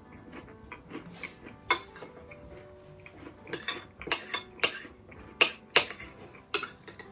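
Cutlery clinking and scraping against a plate as a piece of brownie is cut and eaten. The clinks are sparse at first and come thicker about halfway through.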